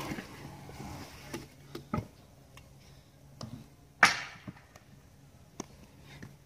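Stunt scooter knocking and clattering on concrete skatepark ramps: several sharp hits a second or two apart, the loudest and longest-ringing about four seconds in, with faint rolling and clicks between them.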